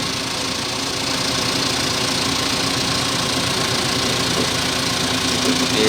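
Tow lorry's engine running steadily while a heavy machine with a dead engine is lowered off the lorry.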